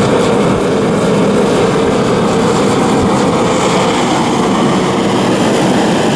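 Remington 60,000-BTU forced-air propane heater running: a steady, loud rush of fan and burner, a tad bit noisy, like a small jet engine.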